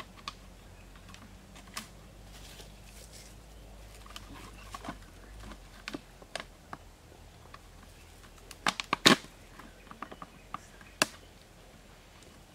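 Empty plastic soda bottles clacking and knocking against each other as they are handled and tied together with string, in scattered clicks with a quick cluster of sharp clacks about nine seconds in and another about two seconds later.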